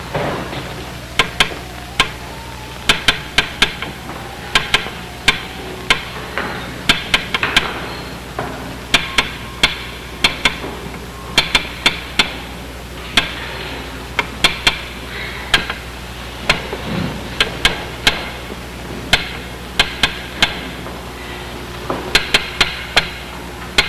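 Sharp knocks struck on metal in quick groups of two to four, repeated irregularly, like rapping on a ship's hull to signal to those inside.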